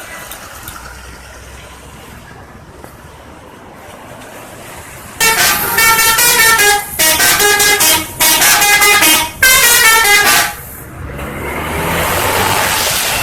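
Telolet horn on an Indonesian bus: a multi-tone musical air horn playing a quick run of changing notes in four loud blasts. After it, a rising rush of engine and tyre noise as a vehicle passes.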